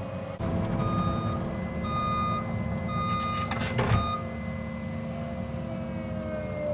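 Cat 306 mini excavator's diesel engine running steadily, with its travel alarm beeping three times about a second apart. A loud crack comes just before the middle.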